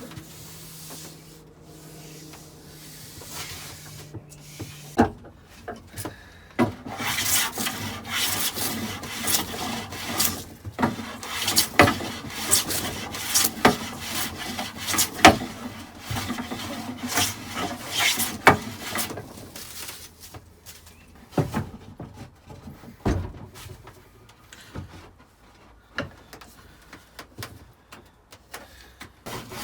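Freshly sharpened hand smoothing plane taking shavings off a wooden board in repeated strokes, the sharp blade cutting cleanly. The strokes come thick and fast from about six seconds in and thin out after about twenty seconds.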